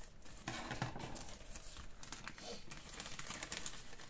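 Paper seed packets rustling and crinkling as they are handled and unfolded by hand.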